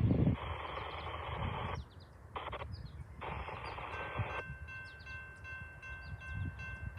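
Railroad grade-crossing warning bell starting about four seconds in and ringing in a steady, even rhythm, the signal that a train is approaching. Before it, three short bursts of hiss.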